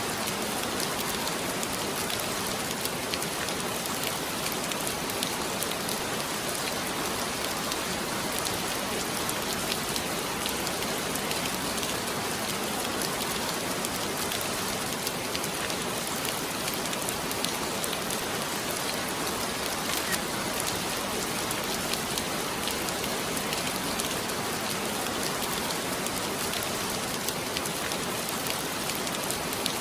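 Heavy rain falling steadily, a dense even hiss of many drops with fine pattering clicks and no let-up.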